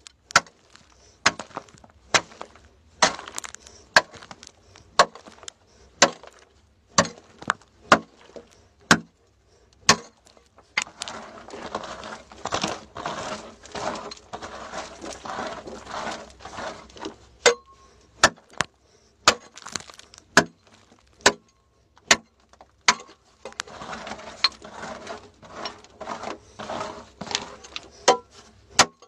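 A hand tool striking hard, dry, stony earth in a pit, sharp blows at roughly one a second, with two longer stretches of rough scraping and crumbling soil between them.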